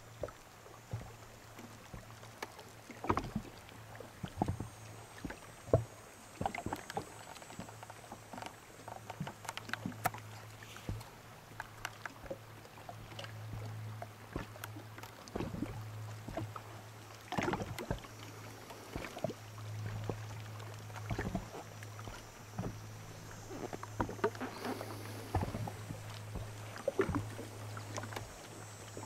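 Water lapping and slapping against the hull of a small boat in irregular splashes and knocks, over a steady low hum.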